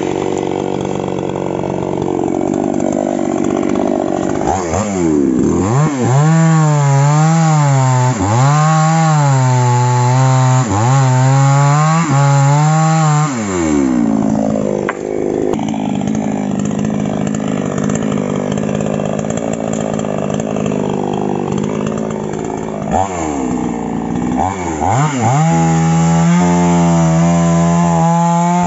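Falcon mini chainsaw's small two-stroke engine cutting small trees. From about 5 to 13 seconds it is revved up and down, the pitch dipping and rising about every two seconds. Through the middle it runs lower and steadier, then it is held at high, steady revs near the end.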